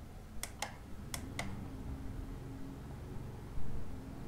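The small plastic push button on a Playmobil toy fire engine's roof clicking as it is pressed and released, two pairs of short clicks about half a second apart, switching on the truck's flashing blue lights.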